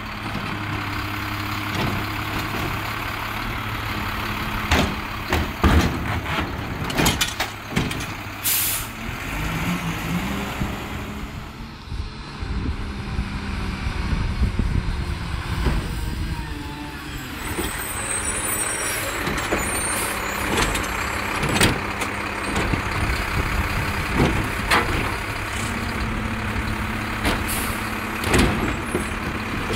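Mack LEU613 garbage truck's diesel engine running while its Bridgeport Ranger automated side-loader arm grabs, lifts and shakes out a plastic wheeled trash cart, with repeated clanks and bangs of the cart against the hopper. The truck moves up to the next cart with air-brake hisses, then lifts and dumps another cart near the end.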